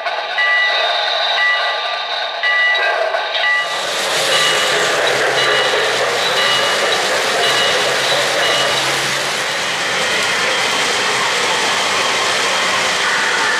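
A model-train bell rings in repeated strokes. About four seconds in, it gives way to the steady rolling noise of O-gauge trains running past on three-rail track, with a low motor hum for several seconds.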